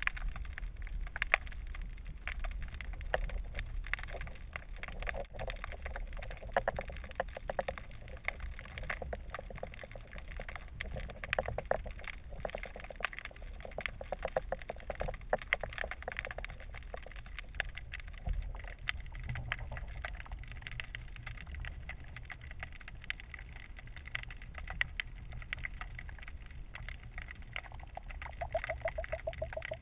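Underwater ambience picked up by a camera in a waterproof housing: a low, muffled rumble with a steady scatter of small clicks and crackles, and a brief buzzing note near the end.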